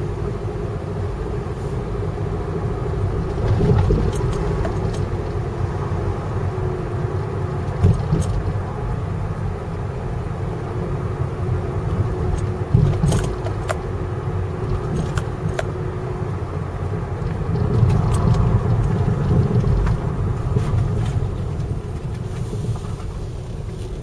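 Boat engine running steadily: a low rumble with a constant hum above it and occasional light knocks.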